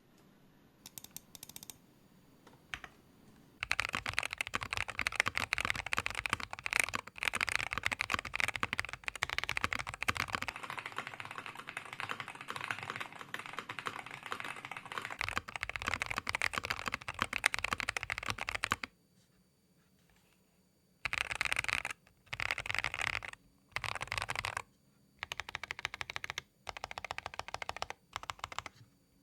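Keychron V1 Max mechanical keyboard with factory-lubed Akko Lavender Purple Pro tactile switches, a polycarbonate plate and PBT keycaps being typed on. A few scattered keystrokes, then fast continuous typing until a pause about 19 seconds in, followed by short bursts of typing with brief gaps.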